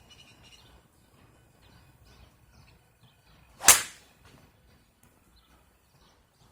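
A golf club striking a golf ball: one sharp crack of impact a little past halfway through, fading quickly.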